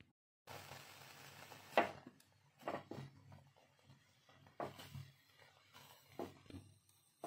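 A whole eggplant roasting on an open gas flame and being turned on the metal burner grate: faint burner hiss and a low hum, broken by several short taps and knocks, the sharpest about two seconds in.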